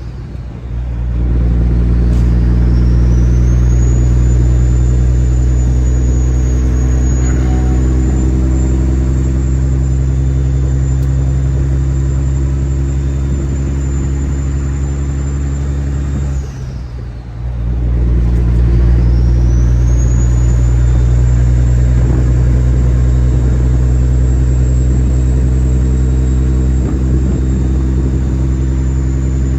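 Kenworth W900's turbocharged diesel engine running steadily, with a high turbo whistle over it. Twice, near the start and about halfway through, the engine briefly eases off and the whistle drops away, then climbs back up over a couple of seconds as the engine pulls again.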